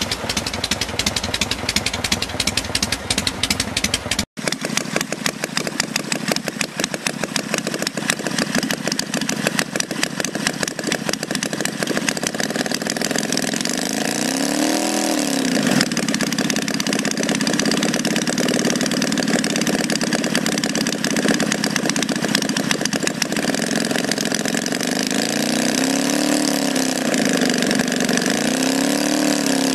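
A 1954 Harley-Davidson Panhead V-twin running for the first few seconds. Then, after a sudden cut, a scale-model Panhead V-twin engine runs with a fast, even firing beat, its pitch rising and falling in a few brief revs, once in the middle and twice near the end.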